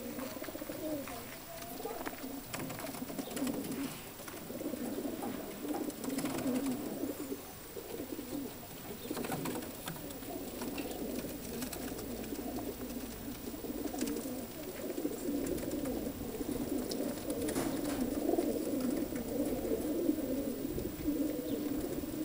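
A large flock of racing pigeons cooing together in a continuous low, warbling chorus.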